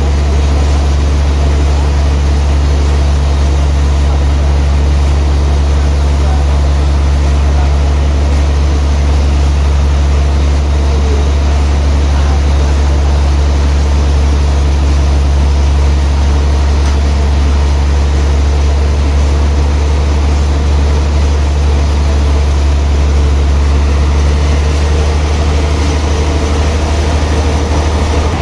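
Heavy sawmill machinery running with a loud, steady low hum and an even mechanical noise above it.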